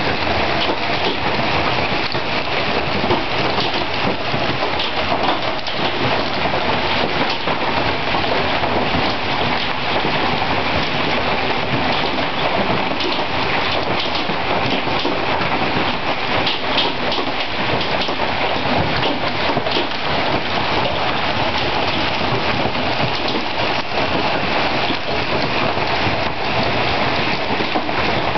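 Hailstorm with hailstones up to 2 inches across pelting the ground and the house: a steady, dense patter of countless small impacts.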